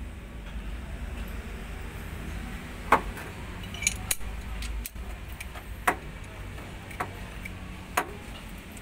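Sharp metallic clicks and clinks, about six at uneven intervals of roughly a second, as a steel bolt is turned with a socket wrench into a damaged head-bolt thread in an engine block, chasing and cleaning the thread. A steady low hum sits underneath.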